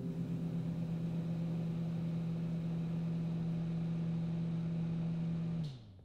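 A steady low hum with several overtones, holding one pitch, then sliding down in pitch and dying away near the end, like a motor winding down.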